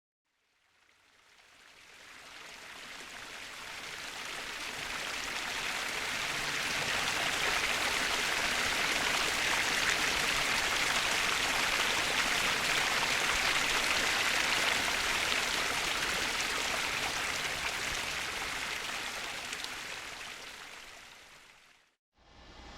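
Flowing stream water, a steady rushing hiss that fades in slowly and fades out near the end.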